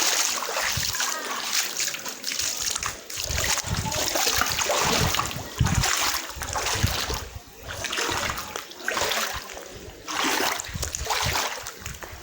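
Floodwater splashing and sloshing in irregular surges, with occasional low thumps.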